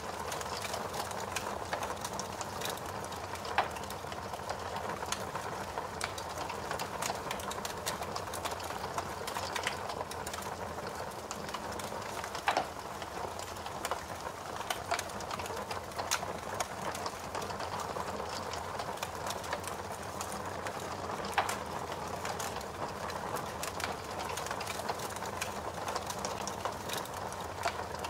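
Fire crackling: a steady hiss with many small sharp pops scattered irregularly through it, a few of them louder.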